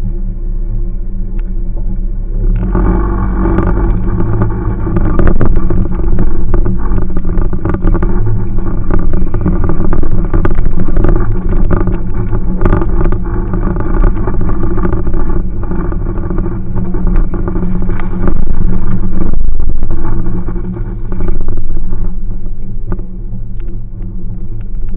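A Jeep's engine heard from inside the cab as it drives a rough dirt trail, with knocks and rattles from the body as it bounces. The engine pulls harder from about two and a half seconds in and eases back a few seconds before the end.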